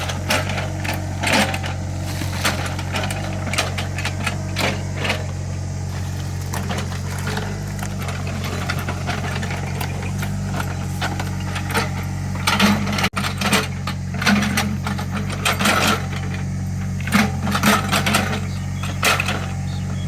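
Small Caterpillar excavator's diesel engine running steadily, with frequent knocks and clatter from the bucket and arm as it digs soil.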